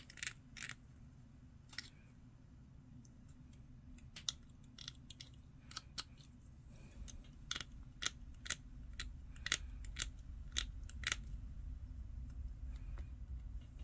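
Irregular sharp clicks and small scrapes of a hobby knife and fingers working a small hard-plastic model kit part, at a low level. A low rumble builds in from about halfway.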